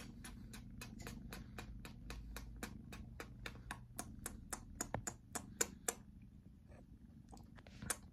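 Rapid, regular wet smacking clicks at close range, about five a second, from kissing and licking at a man's face by a kitten. The clicks thin out about six seconds in and pick up again near the end.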